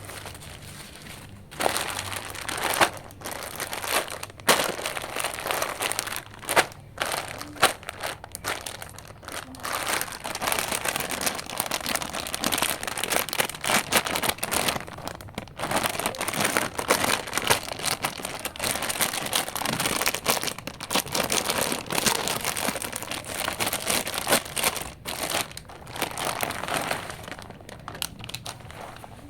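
Plastic packaging of a pack of mini balloons crinkling and rustling as it is handled, with many sharp crackles and a few brief pauses.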